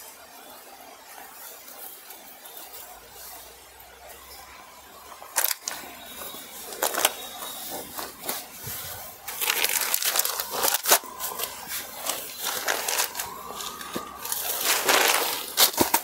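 Silk sarees rustling and crinkling as they are unfolded and spread out by hand, with a few sharp taps. The rustling is louder and more continuous in the second half.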